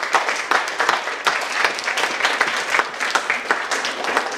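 A small roomful of people applauding, with many overlapping hand claps.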